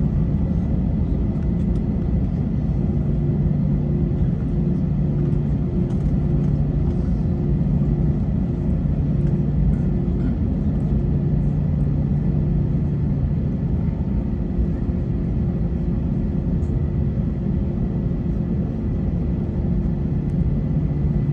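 Steady low drone inside the cabin of an Airbus A321 on the ground, with its engines idling and its air conditioning running. It is an even rumble with a few steady tones over it.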